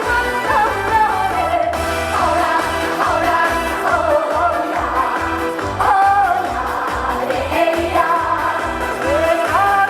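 A woman singing a trot song live over an amplified backing track with a steady bass beat, her voice gliding and wavering through the melody.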